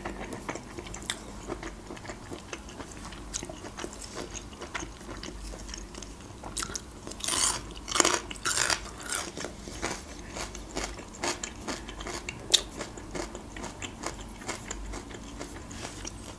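Close-miked chewing and wet mouth sounds of a person eating, with a cluster of louder crunchy bites about seven to nine seconds in.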